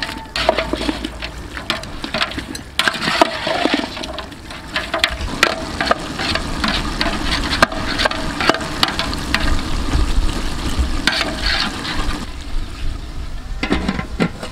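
Chunks of meat in curry sauce being stirred in a large metal pot with a long utensil: wet sloshing and churning, with many short scrapes and clicks of the utensil against the pot. Near the end, a metal lid is set on the pot.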